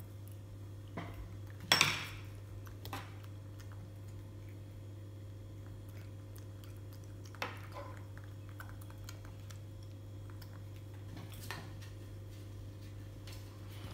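Stainless steel chopstick clinking as a baby monkey bites and handles it: a handful of scattered sharp metallic clicks, the loudest about two seconds in, over a steady low hum.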